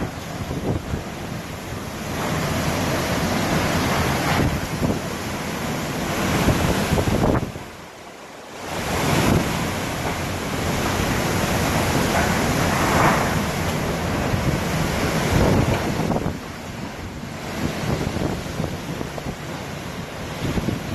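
Hurricane-force wind blowing in strong gusts and buffeting the microphone. It dips away briefly about eight seconds in, then comes back.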